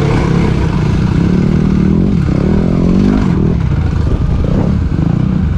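Dirt bike engine running, with one rev that rises and falls about two to three seconds in.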